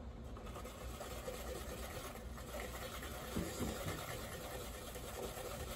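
Garlic cloves being grated on a grater: a faint, steady scraping.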